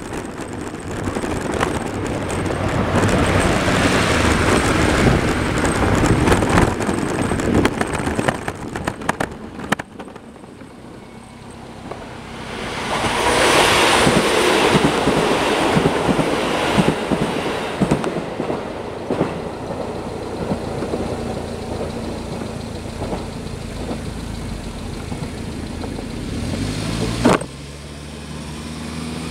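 Road traffic: cars passing close by, with one car swelling past about halfway through. Near the end a sharp knock is followed by the low hum of an engine, rising slightly.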